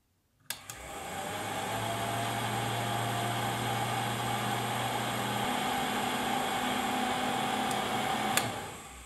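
A nearly 90-year-old restored vacuum cleaner's brushed electric motor, switched on with a click, whining up to speed and running steadily with a rushing air sound. About eight seconds in it is switched off with a click and spins down. This is its test run after restoration, and it runs smoothly.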